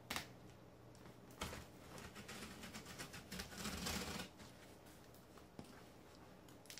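Utility knife blade slicing through packing tape on a cardboard box: a click, then a couple of scratchy cutting and rubbing sounds that grow louder before dying away, followed by quieter handling of the box.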